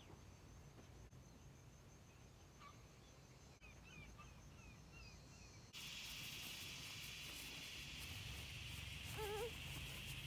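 Faint outdoor summer ambience: birds chirping for the first few seconds, then, from about halfway, a steady high insect drone. A short wavering bird call comes near the end.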